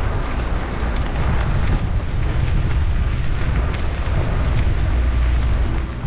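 Wind buffeting the microphone of a camera on a moving bicycle: a steady, loud rumbling rush.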